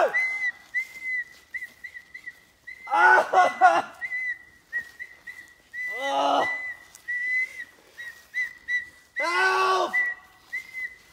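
A steady run of short, high whistling chirps, all at about the same pitch, broken by three louder, long wavering wail-like calls at about three, six and nine seconds in.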